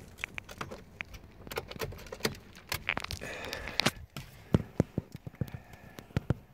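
Irregular clicks, taps and rustling from handling in a car's cabin as someone moves about in the seat with the phone, with a few louder knocks in the last couple of seconds.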